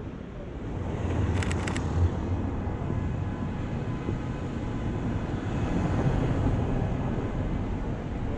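Steady low rumble of a night city street, like traffic, with a quick run of three or four sharp clicks about a second and a half in.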